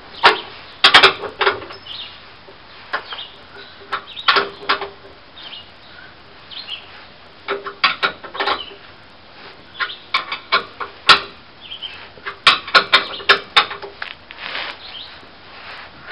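A wrench tightening the bolts of a newly fabricated steel trailer hitch: irregular clusters of sharp metallic clicks and clinks, separated by short pauses.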